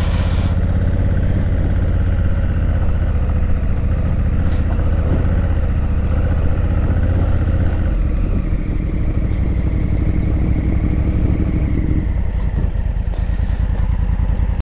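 Honda Africa Twin's parallel-twin engine running steadily at low speed while riding a dirt trail, with some rattling.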